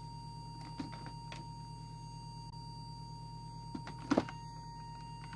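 A steady low buzzing hum and a steady high tone from the bench test set-up, with a few light clicks about a second in and a louder short clatter just after four seconds as the CB radio's handheld microphone is picked up.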